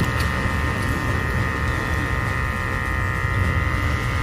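Steady machinery hum with a constant high-pitched whine over it.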